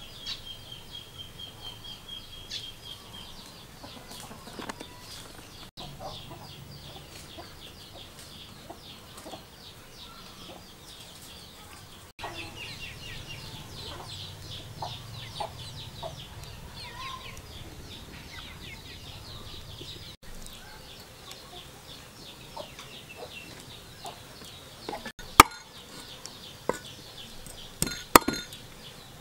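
Chickens clucking over a steady high chirping. Near the end, a few sharp cleaver chops on a wooden chopping block, the loudest sounds.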